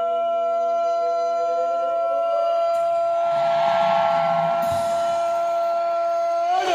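A soldier's long, drawn-out shouted parade command, held at one steady pitch for over six seconds, then sliding down in pitch as it ends.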